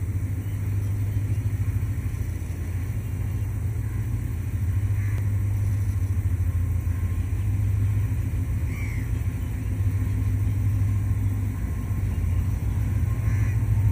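Diesel locomotive of an approaching passenger train running with a steady low engine rumble, growing a little louder toward the end as it draws nearer.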